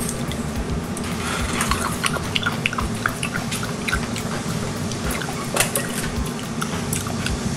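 Wet eating sounds from raw, marinated sea anemones full of seawater: many short squelches and smacks as they are bitten and pulled apart, with liquid dripping and trickling. A faint steady hum underneath.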